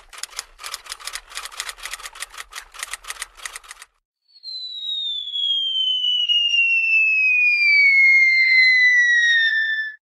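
Rapid, irregular clicking, about five clicks a second, for the first four seconds. Then a long high whistle slides steadily down in pitch to the end, with a fainter tone rising beneath it partway through.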